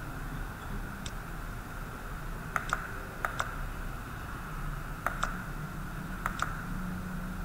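Computer mouse clicks: a faint single click about a second in, then four sharp double clicks, each two strokes in quick succession, over a steady hum of room and computer noise.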